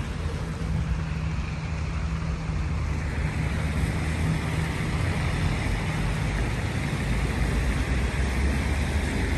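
Steady vehicle engine rumble with road noise. A low engine hum holds for about the first six seconds, then sinks into the noise.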